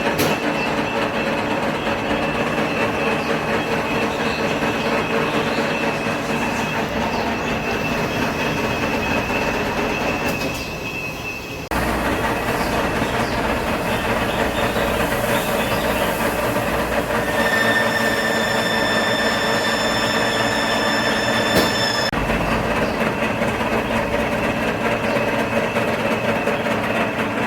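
Mini gasless flux-core MIG welder laying a bead, a continuous dense crackle with a steady whine over it, stopping for about a second around a third of the way in before the arc is struck again.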